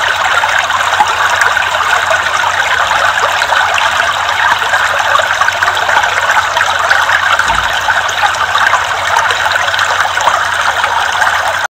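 Ornamental fountain jets splashing steadily into a shallow pool.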